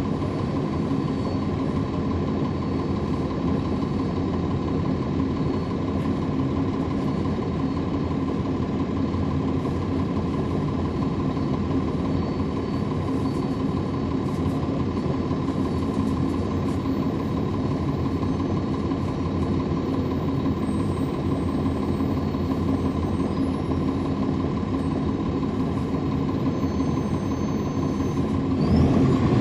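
The Cummins ISL9 diesel engine of a NABI 40-SFW transit bus idling steadily, heard from inside the bus. The sound grows louder near the end.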